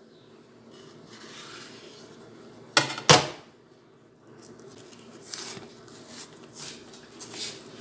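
Ripe plantain being peeled by hand: the thick peel tearing and rasping off the fruit in short scrapes, two sharp ones about three seconds in the loudest, then several softer ones.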